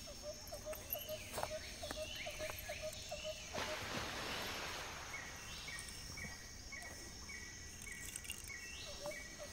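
Birds and insects calling on a wooded hillside, with short chirps repeated in steady series and higher gliding calls. A burst of rushing noise comes a little over three seconds in.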